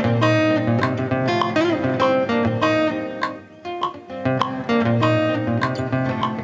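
Silent guitar played through its pickup: a Congolese rumba sebene guitar part of picked single notes and short repeated phrases over low bass notes, in a steady rhythm.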